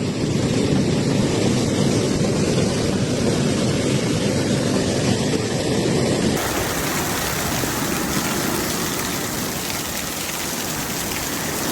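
Steady noise of heavy rain and rushing floodwater. About six seconds in the sound changes abruptly to a thinner, hissier wash.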